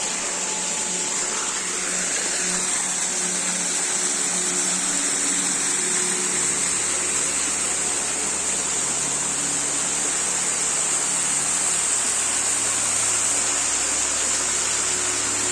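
Waterfall rushing: a steady, even noise of falling water with a bright high hiss. A low rumble joins about six seconds in.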